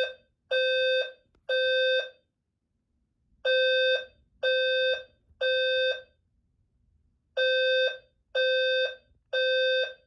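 Building fire alarm horn sounding the temporal-three evacuation pattern: three half-second beeps, a pause of about a second and a half, then the three beeps again. It was set off by someone pulling a manual fire alarm pull station, a false alarm.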